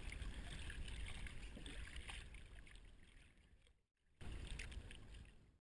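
Faint water sloshing and lapping against a GoPro Hero 2 bobbing at the sea surface, heard through its waterproof housing. It fades away, drops out for a moment a little before four seconds in, comes back briefly, then fades out.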